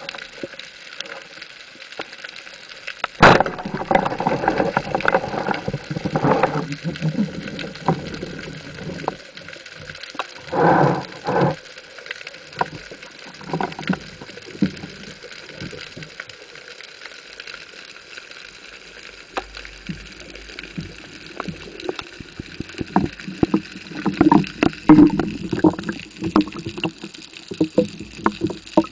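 Speargun firing underwater with one sharp crack about three seconds in, followed by scattered knocks, scraping and gurgling as the speared fish is worked out of its rock hole on the shaft and line; a flurry of short clicks and knocks near the end.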